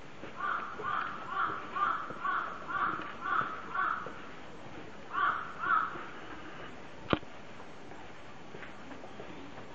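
A crow cawing in a quick run of about eight caws, a little over two a second, then two more after a short pause. A single sharp click comes a second or so later.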